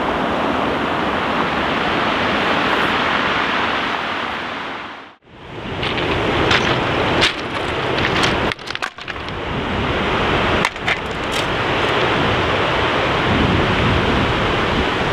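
Sea surf breaking on a shingle beach with wind on the microphone, a steady noise that fades out briefly and back in about five seconds in. A few sharp clicks sound over it in the second half.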